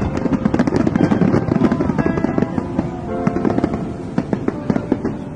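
Fireworks bursting and crackling in rapid succession, over background music.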